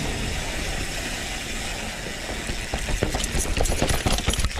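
Mountain bike rolling along a trail: tyres rumbling and wind noise on the microphone, with a quick run of rattling clicks and knocks from the bike over rough ground about three seconds in.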